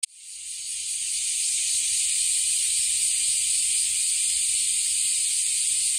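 Cicadas in a dense summer chorus: a steady high hiss that fades in over the first second, then holds level.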